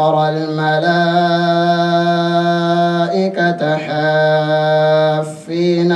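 A man's voice chanting the Quran in melodic recitation, holding long drawn-out notes, with short breaks about three seconds in and again near the end.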